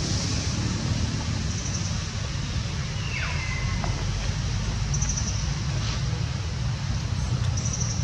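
Outdoor background noise: a steady low rumble, with a few short high chirps and a single falling call about three seconds in.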